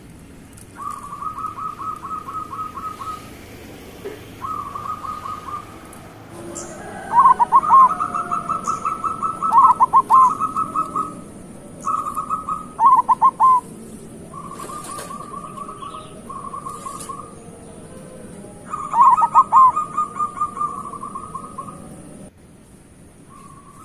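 Zebra doves (perkutut) cooing, phrase after phrase: fast rolling strings of short notes alternate with louder, falling coo notes, with short pauses between the phrases.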